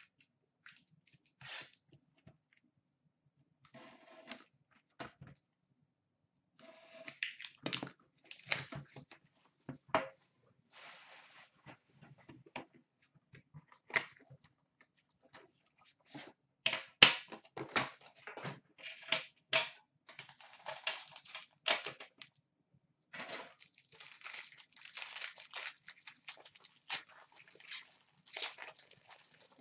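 Hands opening a cardboard trading-card box and tearing into a crinkly plastic pack wrapper: scattered rips, crinkles and cardboard taps. They are sparse at first, then come in dense clusters, loudest a little past halfway.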